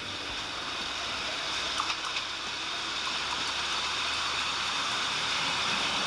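ALn 668 diesel railcar approaching and running past at close range: a steady rushing of engine and wheels on the rails that grows louder as it nears, with a few faint clicks from the track about two seconds in.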